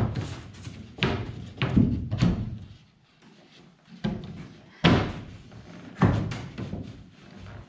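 Plywood board being knocked and shoved into place against a metal boat hull and seat base: about six sharp knocks and thuds at irregular intervals, the loudest right at the start and again about five seconds in.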